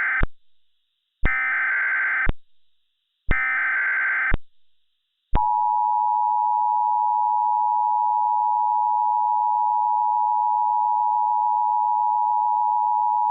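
Emergency Alert System SAME header: the tail of one burst of screeching digital data tones, then two more bursts about a second long and a second apart. About five seconds in, the steady two-tone EAS attention signal sounds for about eight seconds and cuts off near the end.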